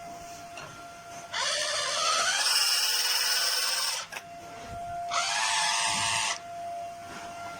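Theo Klein 8410 Bosch toy drill playing its electronic drill sound effect twice through its small speaker, a whirring that rises in pitch as it starts. The first run lasts about two and a half seconds and the second about one second.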